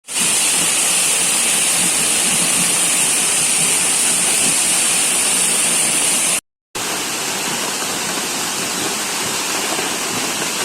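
Waterfall rushing in a steady, loud roar of falling water. It breaks off for a moment about six seconds in, then resumes slightly quieter.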